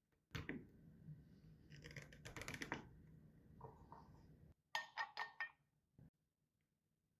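Handling noises at an espresso machine: a knock and a few seconds of rustling and rattling, then four quick ringing clinks of hard objects about five seconds in and a last soft knock.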